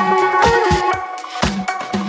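Electronic background music with a steady beat of about two kick drum hits a second under held synth notes.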